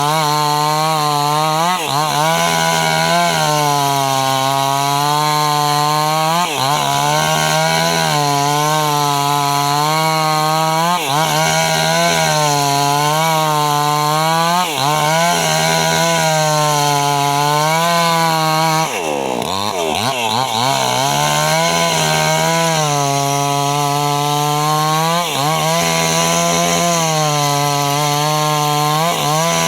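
Small two-stroke chainsaw running at high revs while cutting young teak, its pitch sagging and recovering every few seconds as the chain bites into the wood. About two-thirds through it drops briefly toward idle, then revs back up and cuts on.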